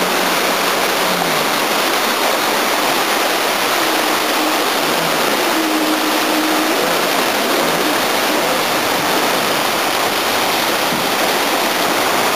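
Fast river rapids rushing steadily over rocks, with the faint hum of a small jet boat's engine under it, most noticeable around four to seven seconds in.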